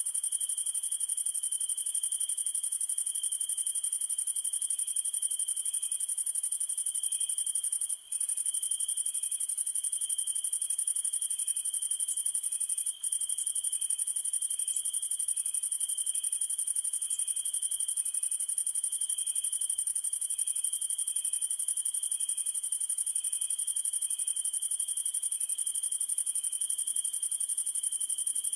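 Night insects, crickets, trilling steadily in two high-pitched tones, with a faint chirp repeating at an even pace underneath. The sound cuts out very briefly twice.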